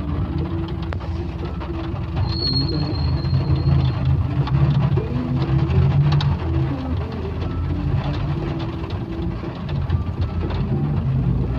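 Moving vehicle in traffic: a steady low engine rumble with road noise and scattered small clicks. A brief thin high squeal sounds about two and a half seconds in.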